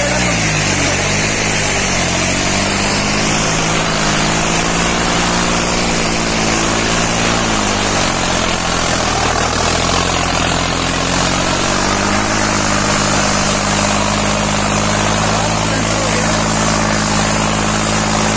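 John Deere 5210 tractor's diesel engine labouring under heavy load, dragging a disc harrow. The engine note sags and recovers twice, then holds steady at a higher speed.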